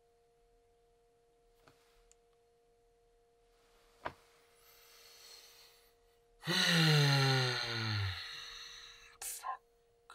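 A man, half-awake, draws a breath and then lets out a long, voiced, groaning sigh that falls in pitch, starting about six seconds in.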